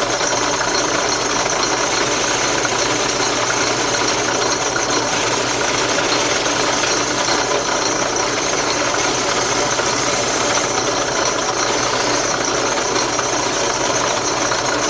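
Drill press running with a sanding drum in its chuck, the drum's abrasive sleeve steadily grinding against the edge of a wooden template held against it: a steady motor hum under a dense rasp of sanding.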